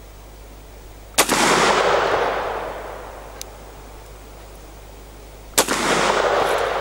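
Two shots from a Rossi Circuit Judge revolver-action rifle in .44 Magnum, about four and a half seconds apart, each followed by a long echo that dies away over a second or two.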